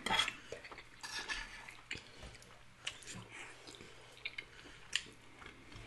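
Quiet eating sounds: soft chewing and mouth noises, with a few light clicks of spoons against ceramic plates.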